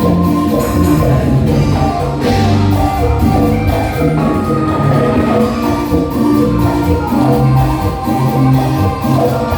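Live cumbia music from a band through a PA: a steady dance beat with bass and sustained melodic notes.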